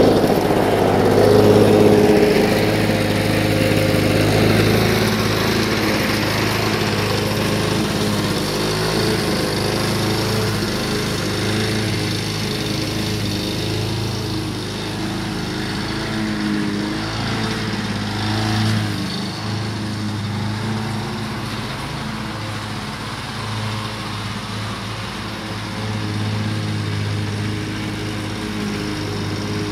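A walk-behind push lawn mower's engine running steadily while being pushed across the grass. It grows fainter as it moves away and swells slightly again near the end.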